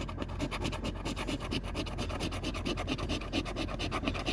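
A lottery scratch-off ticket being scratched: rapid, repeated short strokes scraping the coating off the letter area of a Cash Explosion CashWord ticket.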